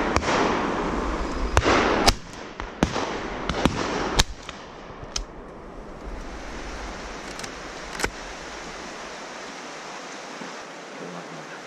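A string of shotgun shots on a pheasant shoot: several sharp cracks in the first four seconds, the loudest about two and four seconds in, and one more near eight seconds. A rushing noise on the microphone runs under the shots during the first four seconds.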